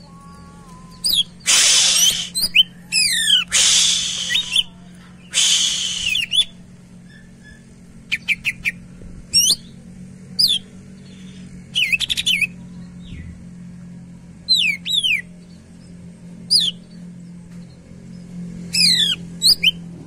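Caged cucak ijo (green leafbird) calling loudly. It opens with three harsh, rasping bursts in the first six seconds, then gives sharp, quick down-slurred whistled notes and short chattering runs every second or two.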